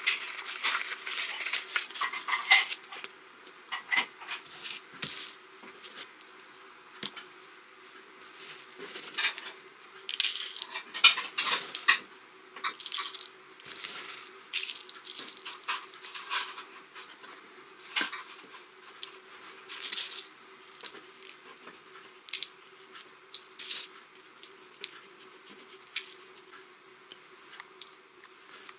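Cardboard matchbox handled on a table, its tray filled with salt: a run of small crisp clicks, scrapes and rustles, busiest at the start and again about ten seconds in. A steady faint hum runs underneath.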